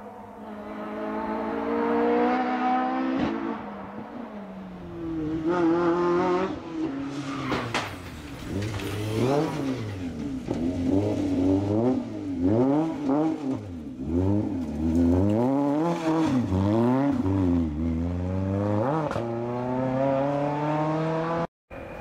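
Renault Clio rally car's engine revving hard. It climbs at first, then swings up and down sharply many times in quick succession while the car sits off the road on the grass, working to get back onto the lane, before a final rising run. The sound cuts off abruptly near the end.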